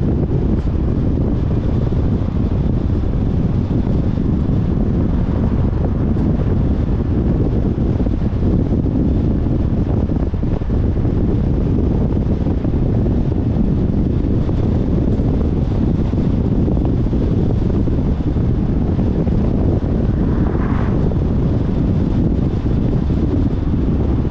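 Wind noise buffeting a car-mounted camera's microphone, with steady road noise from the car driving, low and even throughout.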